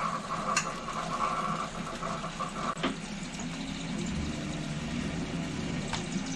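A steady low mechanical hum with a few sharp clicks.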